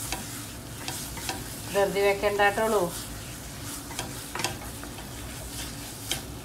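Wooden spatula stirring and scraping a thick jaggery and dal filling around a non-stick pan over a gas flame, with a low sizzle and scattered clicks of the spatula against the pan. The filling is being cooked down until it thickens. A brief stretch of voice comes about two seconds in.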